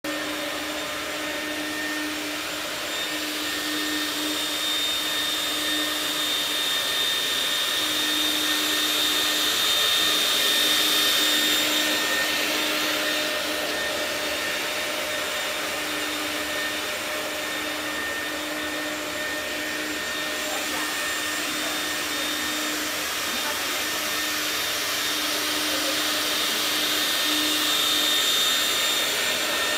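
ECOPRO upright walk-behind floor scrubber running while it scrubs a wet concrete floor: a steady motor whine over a high suction hiss, swelling slightly now and then.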